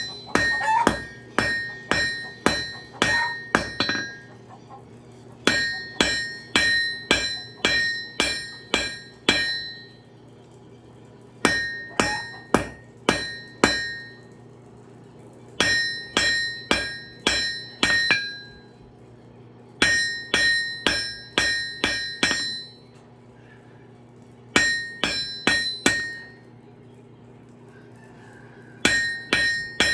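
Hand hammer striking a railroad spike on a ringing anvil during forging, in runs of about two to three blows a second broken by pauses of a second or two. A steady low hum runs underneath.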